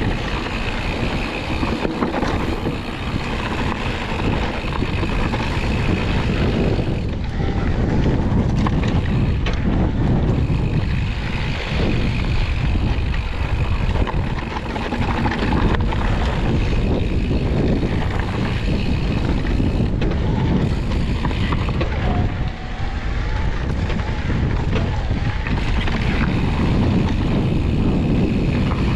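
Mountain bike riding a dirt trail: wind buffeting the microphone over the rumble of knobby tyres on dirt and the rattle of the bike.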